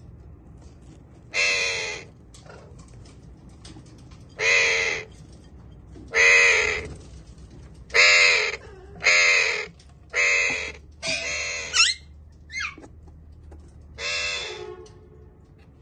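A parrot hen sitting on eggs in a nest box gives about eight harsh, raspy squawks, each about half a second long and a second or two apart, as the box is opened.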